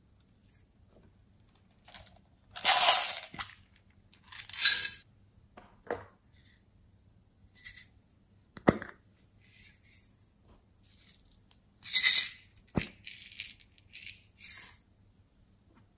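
Glitter and tiny beads rattling as they are shaken out of small plastic bottles onto slime, in several short bursts of about a second each. Two sharp clicks come in between, about halfway and again about three quarters of the way through.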